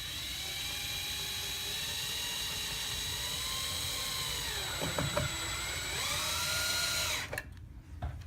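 Power drill/driver running steadily as it drives a mounting screw for a motion sensor, its pitch dipping briefly about five seconds in, then stopping suddenly near the end, followed by a few light clicks.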